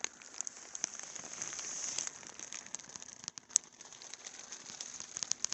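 Keys of a Redragon K513 membrane keyboard being pressed in quick succession: a dense run of light clicks and clacks starting suddenly, with one sharper click about three and a half seconds in.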